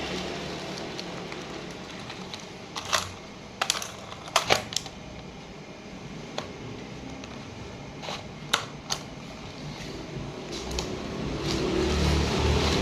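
Scattered sharp clicks and taps of things being handled, about a dozen irregular ones, clustered around the first few seconds and again near the middle, over a steady background rush.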